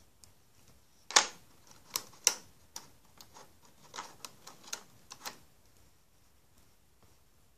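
Irregular sharp plastic clicks and taps on a rubber-band loom as rubber bands are hooked onto its clear plastic pegs. The loudest click comes about a second in, and a quick run of lighter ticks follows.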